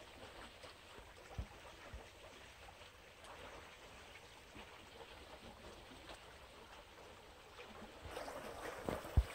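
Flowing canal water running steadily, with a few faint knocks and a single low thump near the end.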